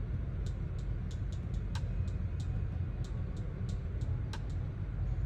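Scattered sharp clicks from a MacBook 12 being operated through its settings menus, two of them louder than the rest, over a steady low hum.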